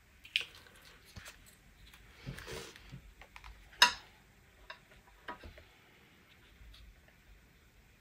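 Quiet handling of paper and card on a cutting mat during gluing: soft rustles with scattered light taps and clicks, and one sharp click just before four seconds in.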